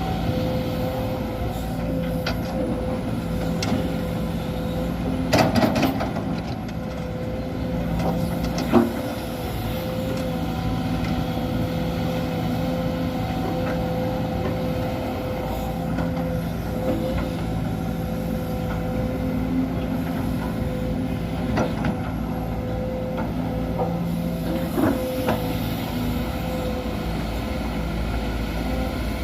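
Hydraulic excavator's diesel engine running steadily, with a few sharp knocks and clanks; the loudest comes about nine seconds in.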